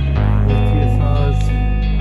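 Background music with plucked guitar and a bass line; the bass changes note about a quarter second in.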